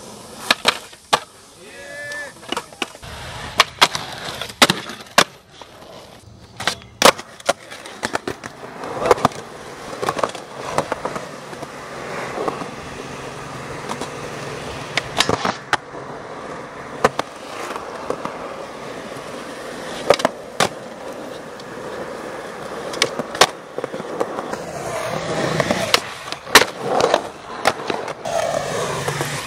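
Skateboards rolling on concrete, with many sharp clacks scattered throughout: tails popping and boards landing and hitting ledges.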